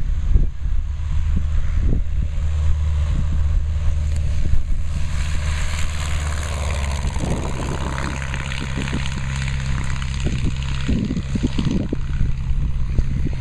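Single-engine propeller plane at full takeoff power, getting louder as it rolls and lifts off close by, then dropping in pitch and fading as it climbs away. Low wind rumble on the microphone throughout.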